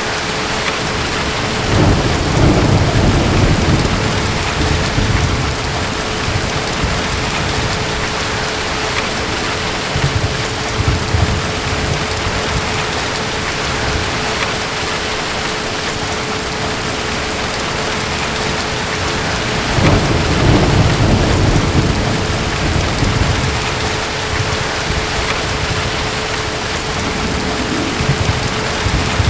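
Steady heavy rain with rumbles of distant thunder: two longer rolls about two seconds in and about twenty seconds in, and shorter ones in between.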